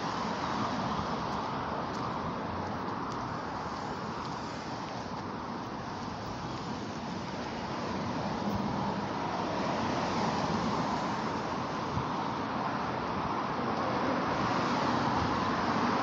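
Steady noise of road traffic passing on the street, swelling about halfway through and again near the end.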